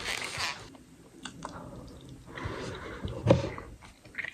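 A person chewing a mouthful of yams close to the microphone: soft wet mouth sounds with a scatter of small clicks.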